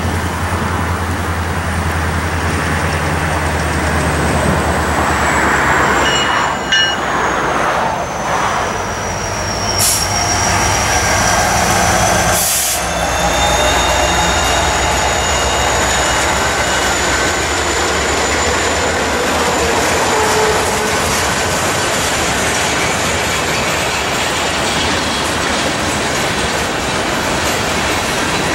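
Norfolk Southern freight train passing close by. Its diesel locomotives, an EMD SD70M-2 leading a GE D9-44CW, drone past first. A string of boxcars then rolls by with wheel clatter and a thin, steady high squeal, and two sharp knocks come a couple of seconds apart near the middle.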